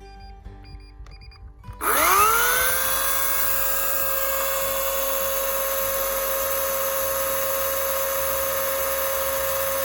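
Greenworks Pro 80V cordless electric chainsaw switched on about two seconds in: its whine rises quickly in pitch as the motor spins up, then holds one steady pitch at full speed. Faint background music runs underneath.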